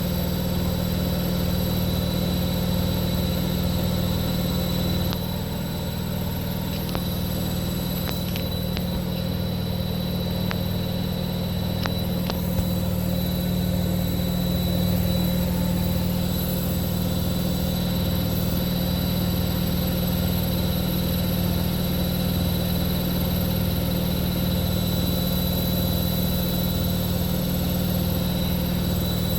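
Continental Edison washing machine on its 1200 rpm spin, running steadily at high speed: a constant motor hum with a low, evenly pulsing throb from the spinning drum.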